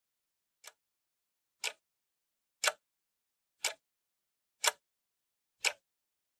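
Short electronic percussion hits, like a hi-hat or noise snare from a drum machine, sounding alone once every second at the start of a beat loop. The first hit is soft and the following five are louder.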